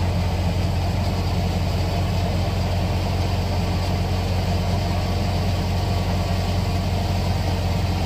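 Tractor-driven multicrop thresher running steadily as wheat is fed through it: a constant, even low engine-and-machine hum.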